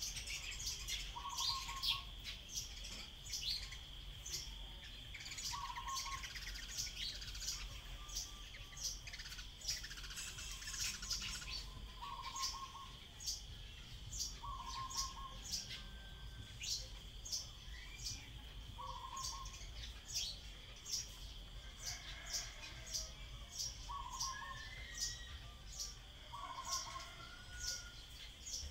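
Common tailorbird calling: sharp, high, very short notes repeated about twice a second. A steady high insect drone runs underneath.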